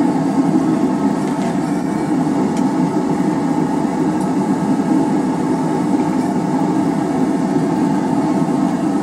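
A forge running with a steady, even roar as the wrought iron bar is brought back up to working heat.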